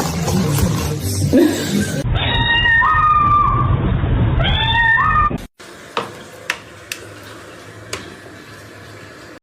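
A cat meowing twice, two long calls that rise in pitch, followed by a few sharp clicks.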